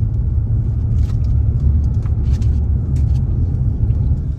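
A van being driven, heard from inside: a steady, loud, low rumble of road and engine noise.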